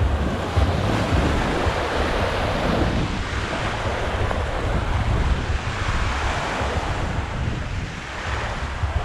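Sea surf washing on the beach, swelling and fading, with wind buffeting the microphone.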